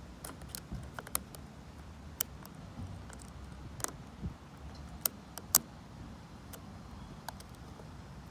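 Scattered small metallic clicks and ticks, irregularly spaced, of a hook pick and tension wrench working the pin tumblers of a vintage Lockwood 570 oval mortise cylinder, over a low muffled rumble of wind on a covered microphone.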